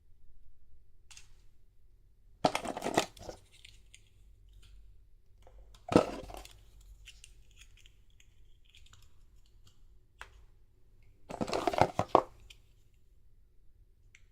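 Plastic doll packaging and doll parts being handled close to the microphone: three short bursts of crinkling, rustling and clicking, the sharpest click about six seconds in.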